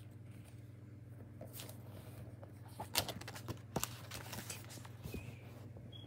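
Handling and rustling: a hand moving and knocking the recording phone and rustling sketchbook paper, a scatter of clicks and short rustles, the loudest about three seconds in, over a low steady hum.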